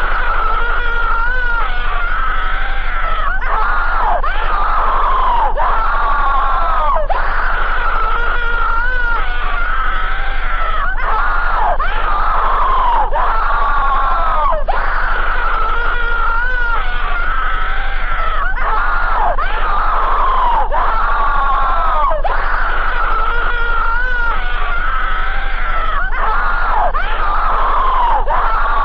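Loud, unbroken screaming: overlapping wails that bend in pitch and repeat every second or two.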